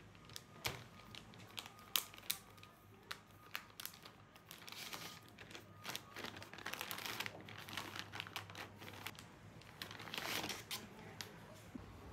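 Packaging crinkling and rustling in spells, with short sharp clicks and taps of things being handled; the loudest click comes about two seconds in.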